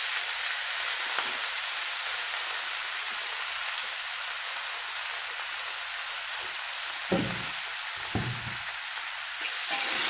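Water spinach sizzling in hot oil in a wok, a steady frying hiss. Two brief low knocks come about seven and eight seconds in.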